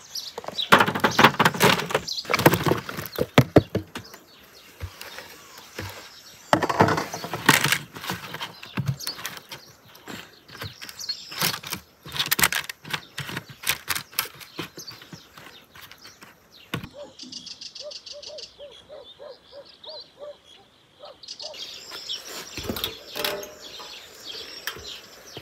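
Sliced potatoes tipped from a plastic bowl onto a paper-lined metal baking tray and spread out by hand: light clattering of slices and crinkling paper, in several bouts with quieter stretches between.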